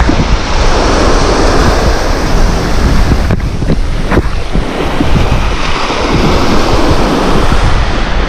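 Small waves breaking and washing up the shore in repeated surges, with strong wind buffeting the microphone as a continuous low rumble.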